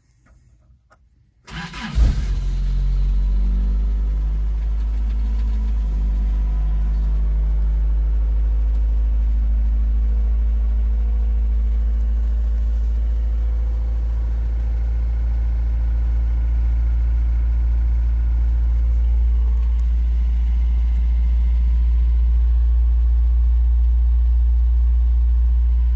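1986 Toyota pickup's 22R four-cylinder engine cold-started: a brief crank about a second and a half in, catching right away. It then runs steadily at a fast cold idle, and its note shifts slightly about twenty seconds in.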